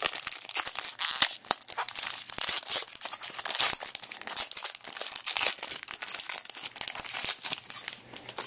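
Crinkling and rustling of a trading-card pack wrapper and cards being handled, with dense crackles and small clicks that stop near the end.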